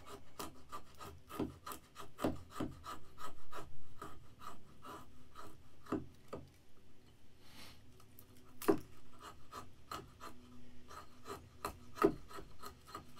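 BeaverCraft AX1 hatchet's convex blade, choked up at the head, shaving and scraping a small stick of wood against a stone floor: a quick, uneven run of scraping strokes, with a couple of sharper knocks about two-thirds of the way through and near the end.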